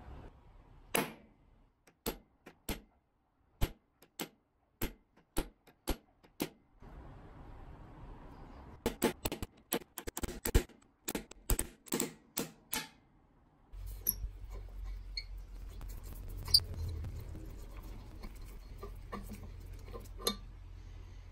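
Sharp metallic clicks and taps from handling antique blowtorch parts: a scattered series of single clicks, then a denser cluster. About 14 seconds in, a steady low hum starts, with fainter clicks and scrapes as the burner's threaded valve spindle is unscrewed.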